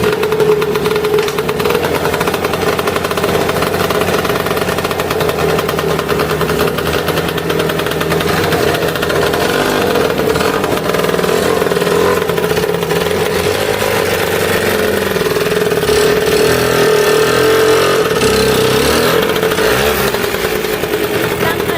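Lambretta scooter's single-cylinder two-stroke engine running at a steady speed, a little louder in the last few seconds.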